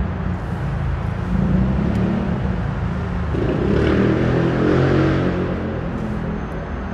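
Road traffic running steadily, with one vehicle passing louder from about halfway through.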